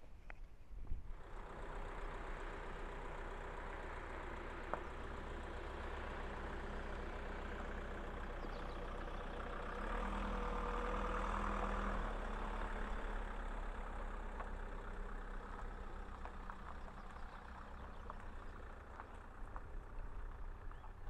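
Camper van's engine running as it drives slowly across a dirt parking area, getting louder about halfway through as it comes closest, then slowly fading.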